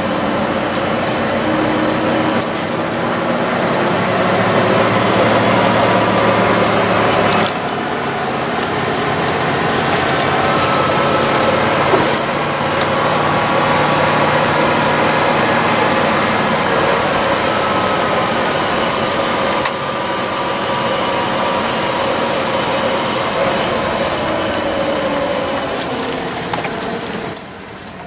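Carbureted dump truck engine heard from the cab while driving, pulling through the gears: its pitch climbs, drops back twice, at about 7 and 20 seconds in, then eases off near the end.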